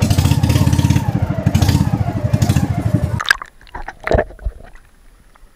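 A boat engine running with a fast, even pulse, cut off suddenly about three seconds in. It gives way to muffled underwater sound with scattered clicks and knocks.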